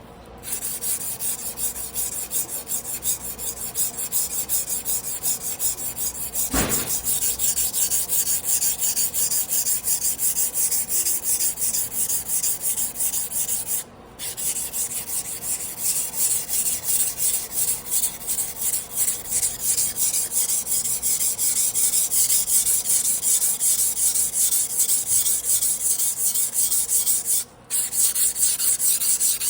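Damascus carbon-steel sashimi knife blade being rubbed back and forth on a wet whetstone by hand, with rapid, even scraping strokes of steel on stone. The strokes stop briefly twice.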